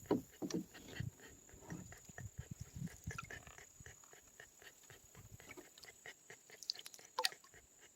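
Small dog panting in quick, uneven breaths close by, with a single sharp click about seven seconds in.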